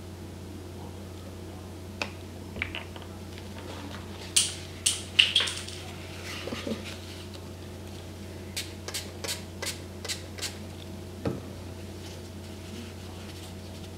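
A handheld pump spray bottle spritzed three or four times in quick succession about four to five seconds in, each spritz a short hiss. A run of light clicks and one knock follow as things are handled on the table, over a steady low hum.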